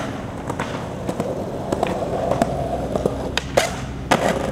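Skateboard on a concrete ledge: the wheels roll and the board clacks and knocks in a string of sharp clicks. The two loudest come about three and a half and four seconds in.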